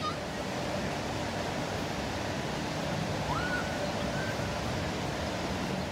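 Steady rushing outdoor noise, with a couple of short rising chirps about halfway through.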